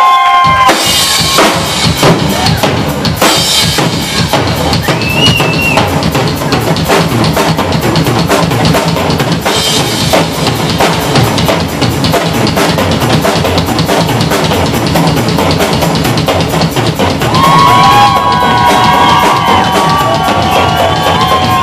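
Live rock drum solo on a full drum kit: rapid bass drum, snare and tom hits with cymbal crashes. A held, wavering higher tone joins over the drums near the end.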